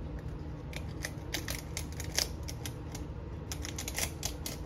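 Dry bay leaves crackling and crinkling as they are sorted and broken by hand: a string of irregular crisp clicks, loudest a little past two seconds in, over a steady low hum.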